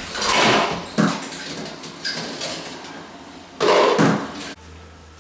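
A plastic washing-up bowl and dishes being handled in a stainless-steel sink: several knocks and scrapes against the metal, with a sharp knock about a second in and the loudest clatter near the end.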